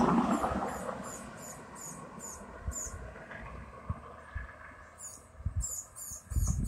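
Evening insects, crickets, chirping in a high, even rhythm of about two chirps a second, pausing for a couple of seconds in the middle and then resuming. A swell of road noise fades away in the first second, and near the end a low rumble of wind on the microphone comes in.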